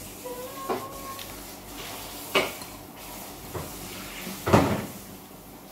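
Four separate sharp knocks and clatters in a kitchen, roughly a second apart. The last one, near the end, is the loudest and heaviest.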